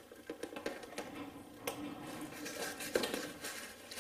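Light clicks, taps and rustling as a shiny metal magnetic parts tray and its packaging are handled, with a couple of sharper metallic taps partway through.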